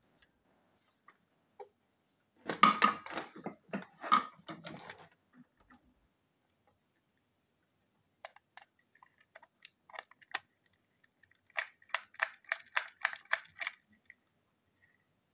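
A plastic TrackMaster toy engine handled in the fingers: a stretch of rustling handling noise, then scattered light plastic clicks and, near the end, a quick run of clicks, about five a second.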